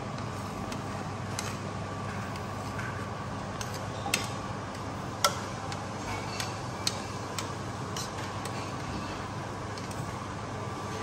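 A few short sharp clicks of a metal spoon and cup knocking against a stainless steel pot of cooked lentils, the loudest about five seconds in, over a steady hum.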